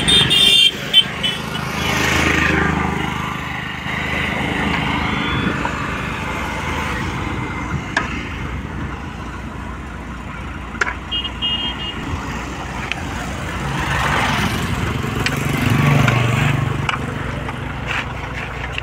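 An engine running steadily, swelling a little twice, with a few sharp metallic clicks.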